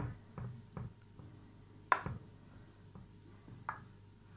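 A wooden spoon knocking against a glass baking dish about five times while spreading soft cooked pumpkin, the loudest knock about two seconds in ringing briefly.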